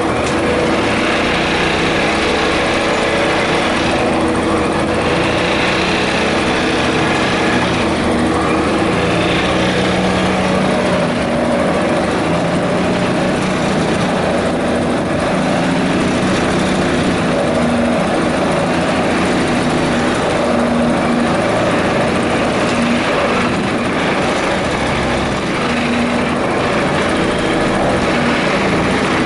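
Hydraulic vibratory pile driver running steadily: a constant mechanical drone with several steady tones, with no clear pauses or changes.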